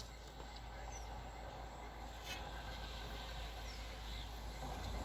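Outdoor ambience: a steady low rumble and hiss, with a few faint, short, high bird chirps.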